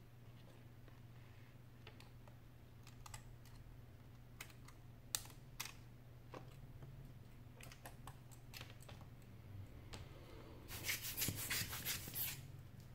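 Light clicks and taps of a touchscreen glass panel being handled and lifted off a tablet's frame, then, about eleven seconds in, a quick run of sharp puffs from a rubber air-blower bulb squeezed over the LCD to clear dust. A faint low hum lies underneath.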